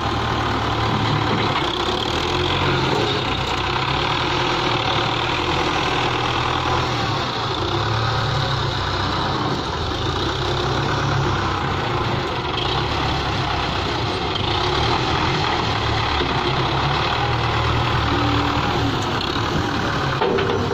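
Belarus 510 tractor's diesel engine running steadily while its front loader scoops and lifts a bucket of dung, the low drone swelling and easing at times as the loader works.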